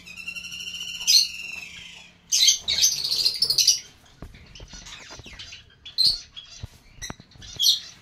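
Lovebirds calling in an aviary: a buzzy, rapidly pulsed chatter for about two seconds, then a run of loud, harsh screeches, then a few short shrill shrieks near the end.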